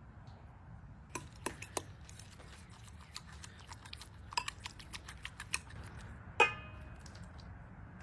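Metal fork stirring oil and herbs in a glass bowl, clicking irregularly against the glass. About six and a half seconds in comes one loud ringing clink of metal on glass.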